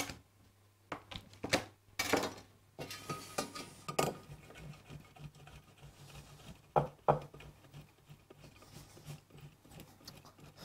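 A block of Gruyère being grated on a flat stainless-steel grater into a ceramic dish: soft rasping strokes, with a few sharper knocks of the grater and knife against the dish and the counter.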